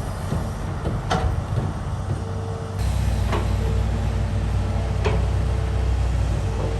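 Excavator's diesel engine running steadily, with three sharp clanks about two seconds apart. About three seconds in, the engine grows louder and deeper.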